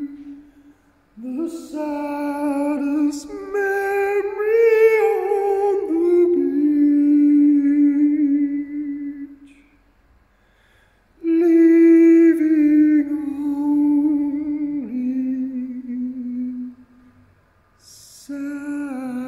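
A man singing long, wordless held notes, the pitch sliding slowly up and down, in three phrases with short breaks about a second in, around ten seconds in, and near the end.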